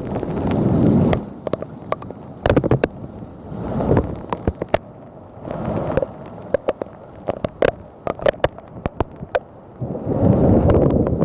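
Thunderstorm wind gusting in swells across the microphone, with frequent sharp ticks of heavy raindrops striking close by.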